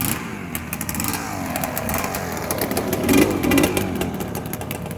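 Motocross bike engine revving unevenly, its pitch rising and falling, with sharp popping and clattering through it.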